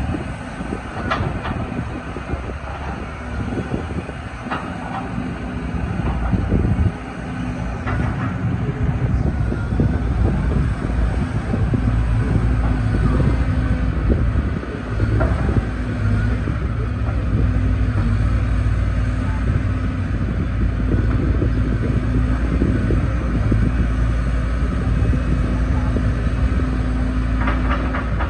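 Caterpillar 313 GC hydraulic excavator's four-cylinder diesel engine running steadily under hydraulic load as the machine swings its upper structure and raises its boom, a little louder from about a third of the way in. A few short knocks come through at intervals.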